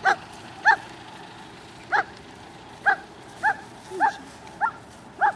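A dog barking repeatedly: about eight short barks at uneven intervals, roughly one every half second to a second.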